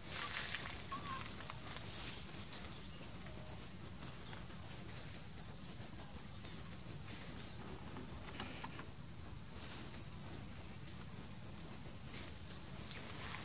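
An insect trilling steadily: one high, rapidly pulsing note. Several brief scuffs or rustles sound over it.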